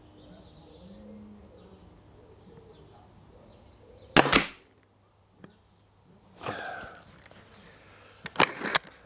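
A single shot from a .22 spring-piston break-barrel air rifle about four seconds in: a sharp crack with a brief tail. Around six and a half seconds comes a noisier clunk, and near the end a few quick sharp clicks, as the barrel is broken, cocked and snapped shut again.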